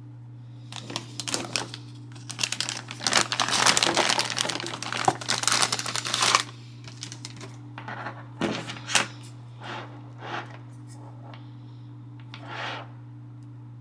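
Plastic packaging crinkling and rustling as it is handled: dense for the first few seconds, then in short scattered rustles and clicks. A steady low hum runs underneath.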